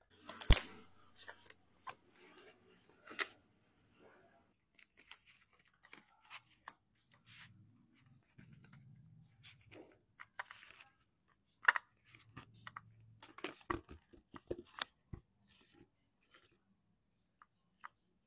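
Strawberries and their plastic punnet being handled close to the microphone: an irregular run of sharp crackles, snaps and tearing noises, loudest about half a second in and again near twelve seconds.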